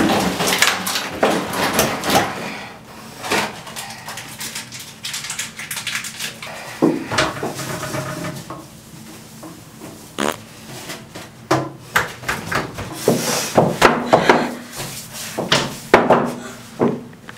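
Objects being knocked about and handled in a small tiled bathroom: irregular clatters and knocks, with stretches of rubbing and scrubbing in between.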